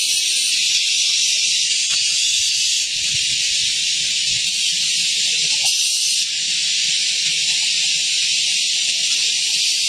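A steady, even hiss concentrated in the high range, unchanging throughout.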